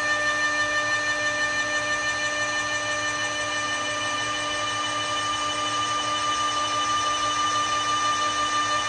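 CNC wood lathe milling a wooden billiard cue, its cutting spindle and stepper motors running with a steady whine of several held tones. The whine dips slightly in loudness midway, then comes back up.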